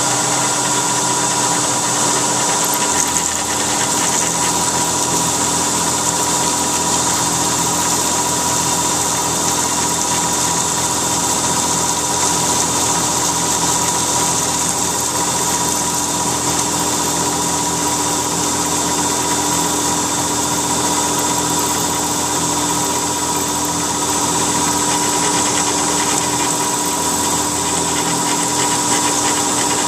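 CNC milling machine cutting aluminium bar stock with an end mill: a steady whine from the spindle and cut over a constant high hiss. The low hum changes about three seconds in and again near the end as the machine's motion changes.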